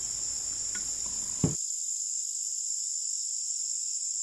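Steady, high-pitched insect chirring that goes on without a break. About a second and a half in there is a single short knock, and after it the low background noise drops away, leaving only the chirring.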